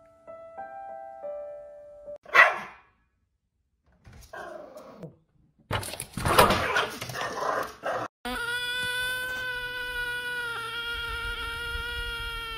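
Short, sharp dog barks, the first one the loudest sound here, after a few soft musical notes. From about eight seconds in, a white Chihuahua's long, steady howl, held on one pitch for several seconds.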